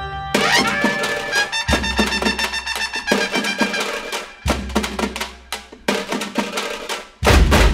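Background instrumental music with a steady beat of drums and percussion, and deep low hits coming in about every three seconds.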